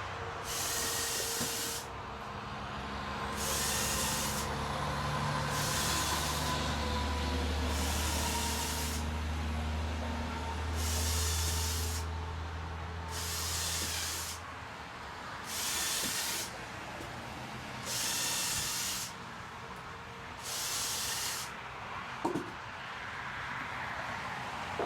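Bursts of hissing air or spray, each about a second long, repeating every two to three seconds over a low, engine-like hum that stops about halfway through. A single knock comes near the end.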